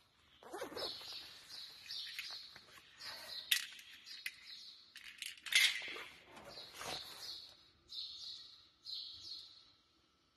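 Small birds chirping in short repeated calls, with scattered clicks and scrapes from hands working a small metal grease fitting at a threaded hole in the machine.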